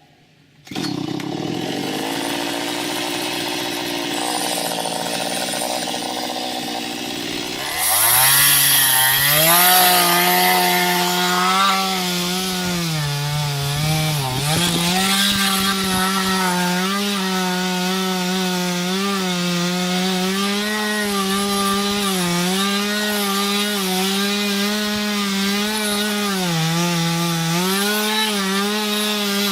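Small chainsaw with a 15-inch bar cutting into an ash trunk. It comes in about a second in and runs at a lower speed, then at about eight seconds revs up and holds high, its pitch dipping and recovering as the chain loads in the wood.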